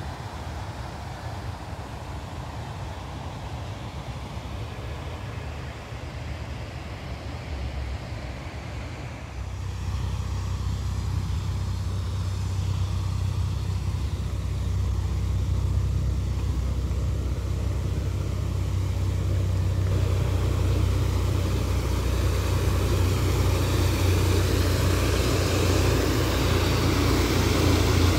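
Creek water rushing over a small concrete weir, a steady rumbling rush. It steps up about ten seconds in and grows steadily louder toward the end.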